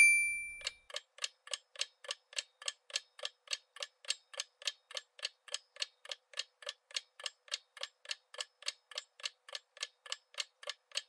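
Quiz countdown timer sound effect: a brief high tone, then steady clock-like ticking at about four ticks a second while the answer time runs down.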